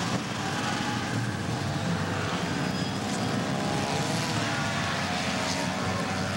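Several two-stroke snowmobile engines running together without a break, one of them rising and falling in pitch about four seconds in.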